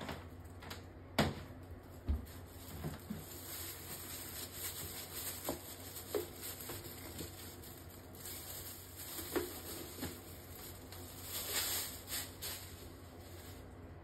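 Clothes being pushed into the plastic tub of a collapsible mini washing machine: fabric rustling with scattered knocks and clicks against the plastic, the sharpest about a second in, over a steady low hum.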